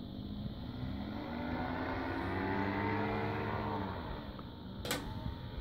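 Paramotor engine buzzing in the sky, its pitch rising and then falling again. A sharp click near the end.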